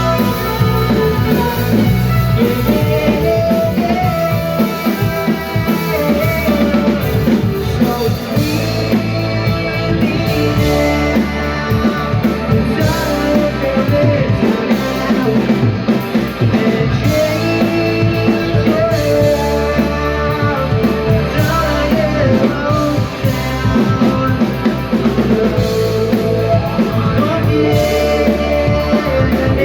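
Live rock band playing loudly without a break: a drum kit, guitar and a singing voice.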